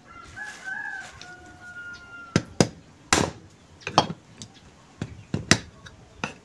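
A rooster crows once in the first two seconds. From about two and a half seconds in, a hammer strikes the metal frame of a spin dryer motor about eight times in an uneven rhythm, each strike sharp and loud.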